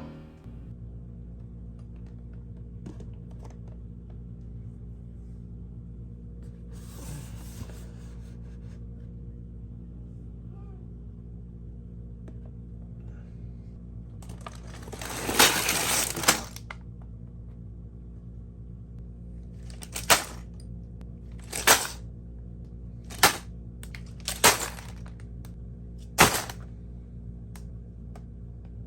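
Plastic LEGO pieces rattling and clattering: a two-second spill of pieces about halfway through, then five sharp single clicks spread over the next six seconds. A steady low electrical hum runs underneath.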